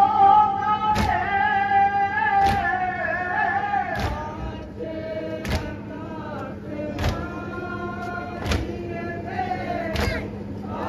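A man leading a noha, a sung lament, through a microphone and PA, with other voices joining in. Regular thumps about every one and a half seconds keep time, the mourners' matam (chest-beating) to the lament.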